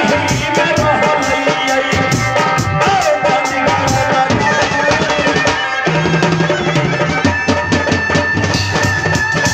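Live stage music: drums keep a steady, fast beat under a melody, with a man singing into a microphone over the first few seconds before the instruments carry on with held notes.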